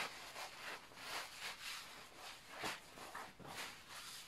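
A waist trainer being wrapped around the waist and fastened: faint, irregular rustling and rubbing of the garment, with a sharp click at the very start.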